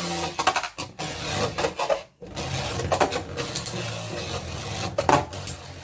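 Two Beyblade Burst spinning tops spinning and clashing in a plastic stadium: a continuous scraping rasp with scattered sharp clicks.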